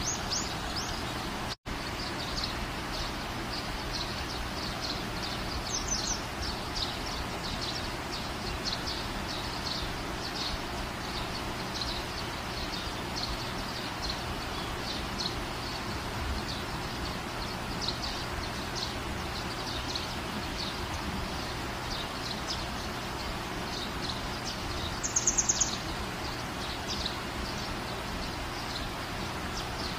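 Steady outdoor background noise with short high chirps repeating about once or twice a second, and a brief run of rapid high chirps near the end. The sound cuts out for an instant about a second and a half in.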